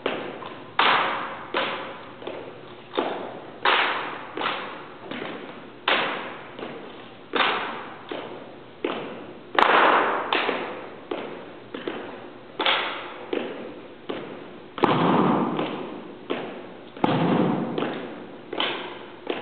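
Sailors' rifle drill: hard heel strikes of marching steps and hands slapping rifles, sharp knocks about one every three-quarters of a second, echoing in a large hall. A few louder crashes stand out, about halfway through and twice near the end.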